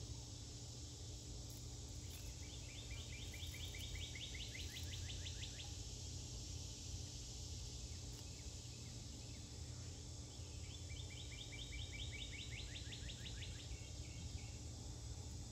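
A songbird sings a rapid trill of short, evenly spaced notes twice, each trill lasting about three seconds. Beneath it runs a steady low outdoor rumble.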